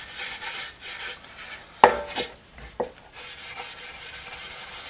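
0000 steel wool scrubbed back and forth over a dried coat of primer on a socket-set box, making a dry rasping rub in quick, even strokes to smooth the finish. A few sharp knocks sound near the middle.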